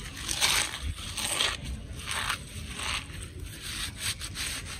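Eggshells being crushed and crumbled between the hands: a run of dry crackling crunches as the shells break into small flakes.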